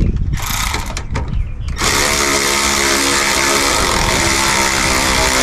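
Cordless power ratchet running down the nylon lock nut on a rear sway bar end link: a short run, then a steady whining run of about three and a half seconds.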